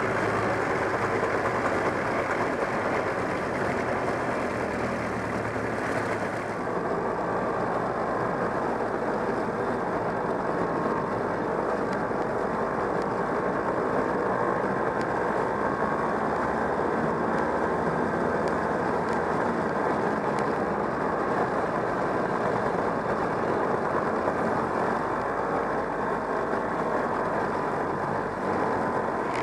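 Engine of a 1969 Polaris Mustang snowmobile, a JLO 372 two-stroke, running steadily as the sled travels over snow. The sound thins slightly in its upper range about six seconds in.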